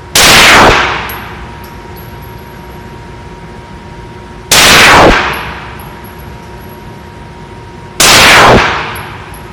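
Three single shots from a Glock 19 Gen4 9mm pistol firing Federal 115-grain rounds, slow and deliberate, about three and a half seconds apart. Each shot overloads the recording and then rings away over about half a second.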